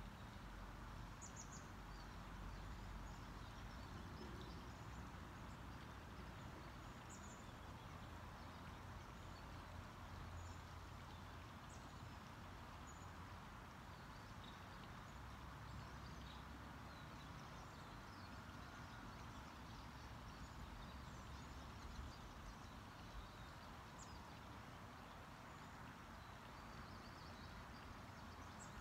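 Faint outdoor ambience: a steady hiss and low rumble, with scattered short, high bird chirps now and then.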